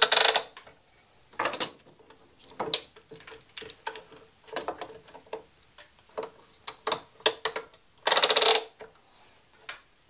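Metal handsaw being shifted up in a wooden vise held by quick-release clamps, with a run of clicks, knocks and short scrapes. The longest scrapes come at the start and about eight seconds in.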